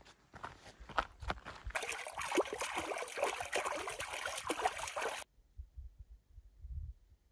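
Footsteps on a gravel trail, then shallow lake water splashing and trickling around bare feet among rocks. The splashing cuts off suddenly about five seconds in, leaving only a faint low rumble.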